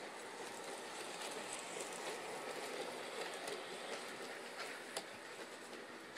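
G-gauge model train with green passenger coaches running past on the track: a steady rolling rumble of wheels on rail, a little louder as it goes by close, with a single sharp click about five seconds in.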